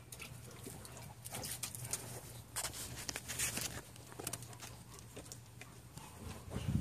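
A German Shepherd lapping water from a steel pot: quick splashy laps in short runs, loudest between about one and four seconds in.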